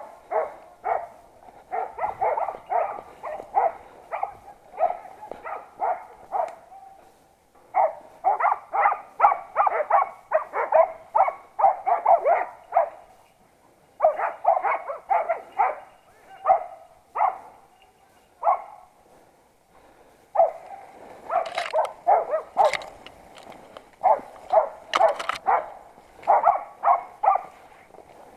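Hunting dogs barking in rapid runs of several barks a second, in bouts broken by short pauses. A few sharp clicks come past the middle.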